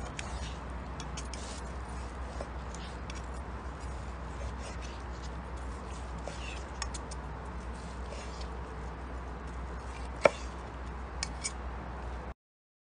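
A knife slicing through cooked steak on a wooden cutting board: scattered small clicks and taps of the knife and fork against the board, with one sharper click about ten seconds in, over a steady low hum. The sound cuts off suddenly near the end.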